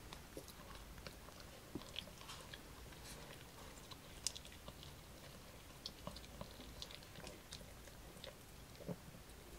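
A poodle chewing a homemade air-fried tofu stick with carrot and spinach: quiet, irregular crunches and clicks of teeth on the treat, with one sharper crunch a little past four seconds in.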